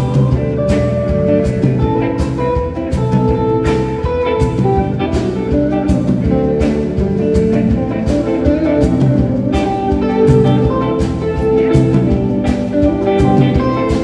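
Blues band playing live: electric guitars over bass and drums, with a steady beat and no singing.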